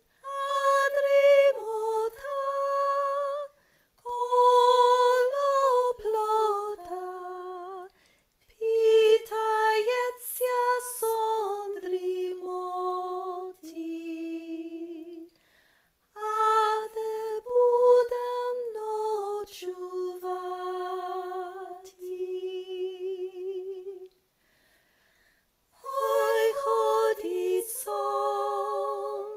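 A single woman's voice singing a traditional Ukrainian lullaby unaccompanied, in slow phrases with vibrato on the held notes. There are short breaths between phrases and a longer pause of about a second and a half near the end.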